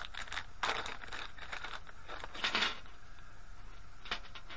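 Plastic lure packets crinkling as they are handled, in two short bursts, about a second in and again just past two seconds, with a sharp click near the end.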